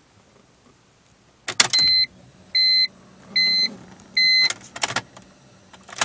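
A click, then a run of even electronic warning beeps, one about every 0.8 s, from a 2003 BMW E46 330i that will not start. No cranking or engine is heard.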